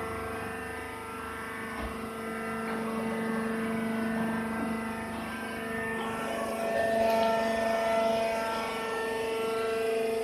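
Hydraulic sawdust baler's motor and pump running with a steady hum of several tones, a higher tone joining about seven seconds in.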